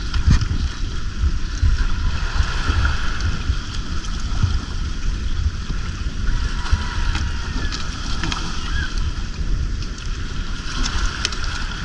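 Wind rumbling on the microphone over a steady wash of sea water, with a few faint knocks as fish are handled in the boat.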